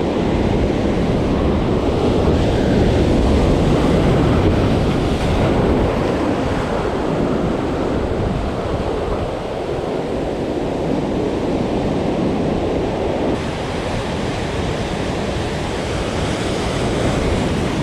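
Ocean surf breaking and churning against rocks, a continuous loud rush, with wind buffeting the microphone.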